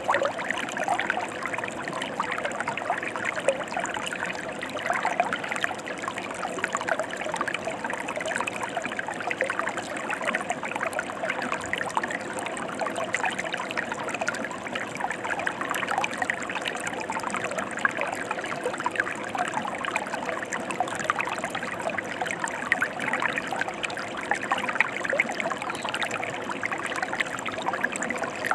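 Mountain river flowing: a steady rush of water dotted with many small splashes.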